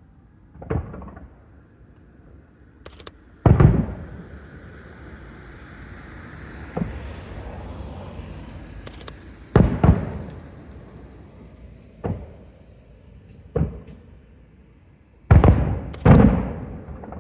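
Aerial firework shells bursting in a display: a string of sharp booms at uneven intervals, the loudest two close together near the end, with a hiss after the burst about three and a half seconds in.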